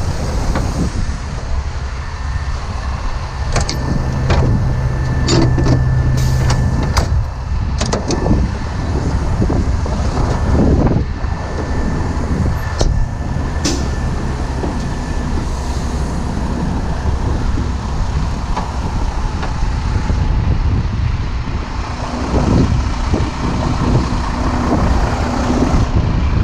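Heavy diesel truck engines running with a steady low rumble, with a few sharp clinks of rigging hardware between about three and eight seconds in and once more near thirteen seconds.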